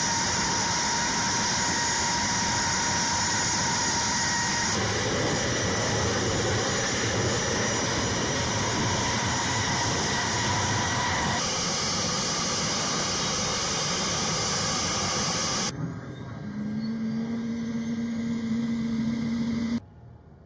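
A-10 Thunderbolt II's twin TF34 turbofan engines running on the ramp: a loud, steady jet noise with a high-pitched whine, shifting abruptly at cuts. Near the end it gives way to a quieter steady hum with a faint rising whine, then drops off sharply.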